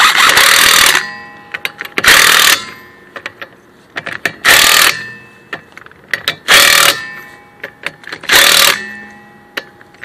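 Impact wrench tightening wheel lug nuts: five short runs about two seconds apart, one per nut, as the wheel is fastened back on.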